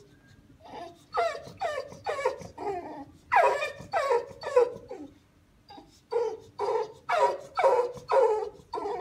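Boxer dog whining in a series of short cries that fall in pitch, about two a second, in three runs with brief pauses between them.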